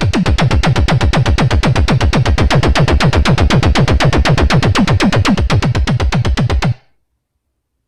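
Arturia MicroFreak synthesizer playing a factory preset: a fast run of repeated notes, about eight a second, each with a falling pitch sweep in the bass. It cuts off abruptly near the end, leaving silence.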